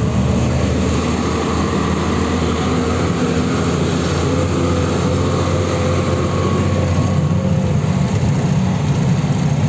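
Truck engine running steadily while driving, heard from inside the cab, with road noise.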